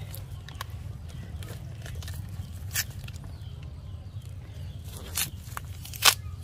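Shredded palm-trunk fibre being torn apart and pulled by hand, crackling and rustling, with a few sharp snaps. The loudest snap comes near the end. A steady low rumble runs underneath.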